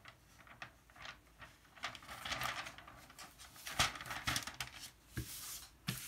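Clear plastic cover film rustling in short bursts as hands lay it back onto a velvet diamond-painting canvas and smooth it down to press out air, with a few soft knocks on the table.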